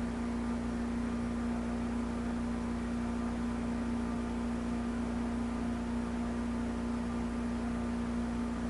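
Steady low hum with an even hiss over it: constant background noise of the recording, with no handling sounds standing out.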